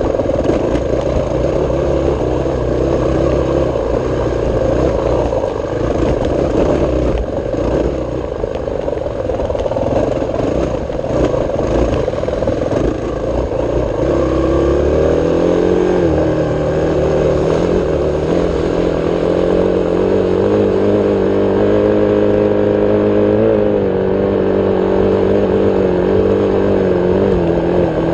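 ATV engine running while riding along a bumpy dirt trail. The first half is rough and noisy. From about halfway in, a steady engine tone rises and falls a little with the throttle.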